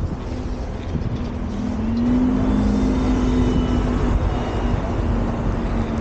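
Steady rumble of quad roller skates on soft outdoor wheels rolling over tarmac, with wind on the microphone. A steady hum comes in about two seconds in and holds to near the end.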